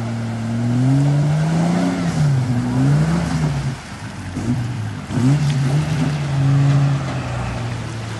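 A 4x4's engine revving up and down again and again under load as it tows a stuck vehicle through a river on a strap, with water splashing. The revs climb about a second in, rise and fall several times, sag near the middle, pick back up and drop again near the end.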